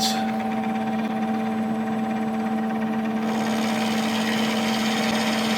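Milling machine spindle running with a steady hum while the cutter takes a light shave, about a quarter of a millimetre, off the flats of a bolt head. A faint hiss grows about three seconds in.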